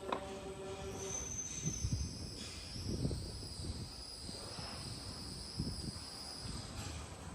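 PY-400 automatic carton forming and taping machine running. A motor hum stops about a second in, then a steady high whine continues until near the end, over a low rumble with a few soft knocks.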